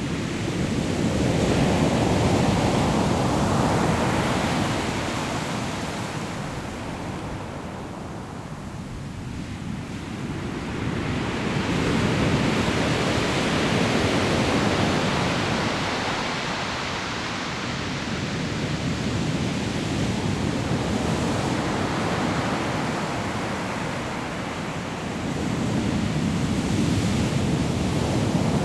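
Sea waves breaking on a pebble shore, the surf swelling and fading in four slow surges.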